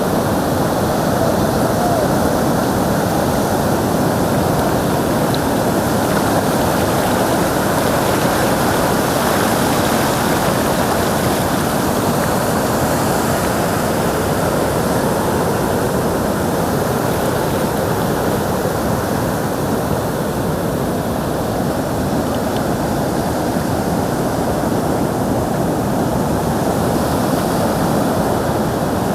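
Loud, steady rushing of ocean surf, with no distinct breaks or events.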